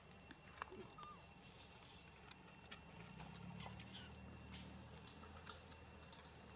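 Faint, scattered clicks and crackles of long-tailed macaques handling a red plastic wrapper of food and shifting on gravel, over a faint steady high tone.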